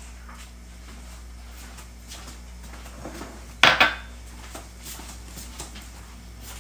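A small ceramic bowl set down on a granite countertop: a sharp clatter a little over halfway through, followed at once by a second clink. A few faint clinks and a low steady hum sit around it.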